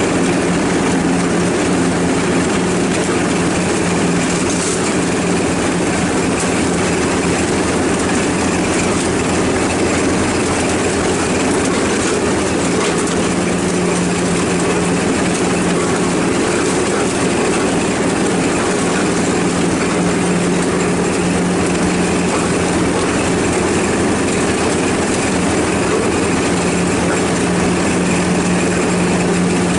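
Ride-on lawnmower engine running steadily at a constant speed, a continuous drone with a low hum.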